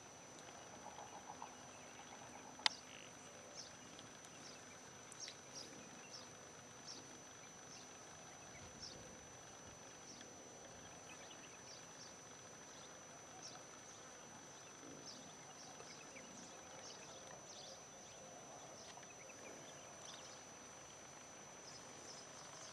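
Faint outdoor ambience: a steady thin high-pitched whine with short high chirps every second or so, a brief rapid pulsing call about a second in, and one sharp click a little after two and a half seconds.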